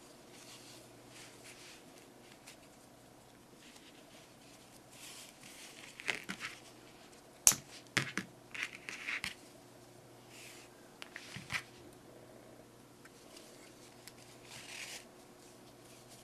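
Soft rustling and scraping of hands working crocheted pieces and yarn while sewing them with a yarn needle, over a faint steady hum. A sharp click about halfway through is the loudest sound, followed by a few smaller taps and rustles.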